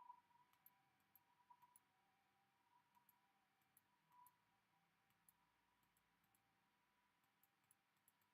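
Near silence, with very faint, small high-pitched clicks scattered irregularly over a faint steady hum-like tone.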